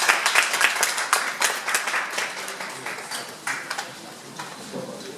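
Audience applauding in a crowded room, with many irregular hand claps that thin out and die away over the last couple of seconds.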